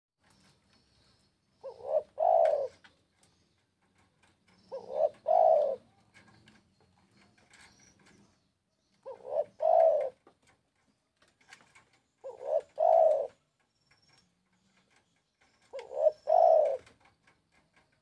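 Spotted dove cooing: five calls a few seconds apart, each a short note followed at once by a longer, stronger one.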